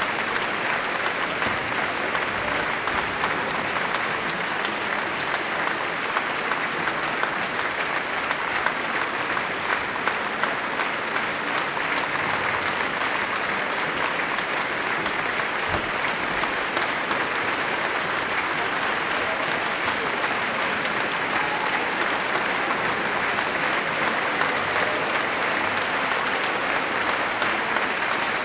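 Concert audience applauding steadily, a dense, even clapping that holds without let-up.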